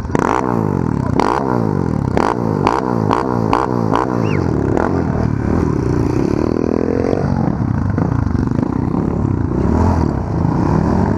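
Small off-road motorcycle engine revved in quick repeated throttle blips, about two a second for the first four seconds, then a longer rise in revs about six seconds in before it settles to steady running.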